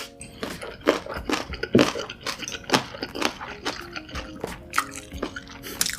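Close-miked wet eating sounds: chewing, smacking and squishing of food in a thick sauce, with irregular clicks several times a second.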